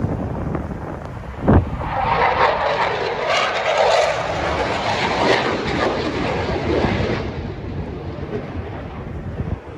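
Jet aircraft flying past, its rushing engine noise swelling about two seconds in and fading away after about seven seconds, with wind buffeting the microphone.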